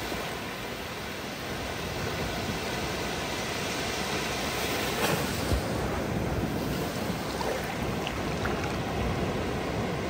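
Ocean surf at the shoreline: waves breaking offshore and shallow wash running up over the sand, a steady rushing sound that swells briefly about halfway through as a wave washes in.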